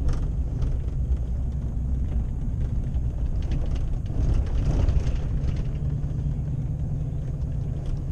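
A vehicle driving slowly, heard from inside the cab: a steady low rumble of engine and road, with a slight swell about halfway through.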